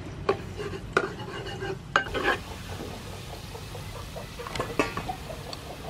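Chopped garlic sizzling in hot soybean oil in a frying pan, with a metal spoon clinking and scraping several times as it is added and stirred.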